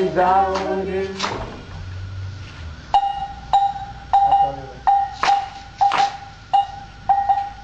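Voices singing briefly, then a struck metal bell rings a steady beat of just under two strokes a second with a few drum hits among the strokes, accompanying a West African dance.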